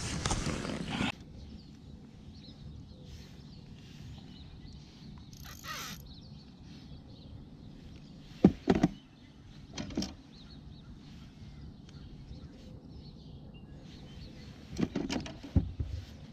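Fishing tackle being handled in a kayak: a few short knocks and clatters against quiet outdoor background, with a brief hiss about five and a half seconds in.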